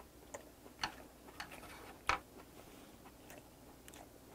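Faint, close-up chewing of soy-sauce-marinated sea hare and rice: a string of irregular wet mouth clicks and smacks, the loudest about two seconds in.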